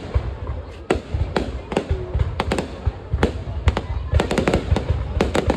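Fireworks going off: a string of sharp bangs and crackles at irregular intervals, several a second and thickest in the second half, over a steady low rumble.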